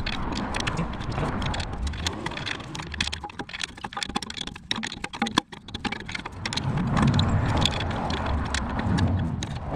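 Metal tools clicking and clinking against the brake caliper as its bolt is tightened, in irregular quick clicks. A low rumble sits under it at the start and again from about two-thirds of the way through.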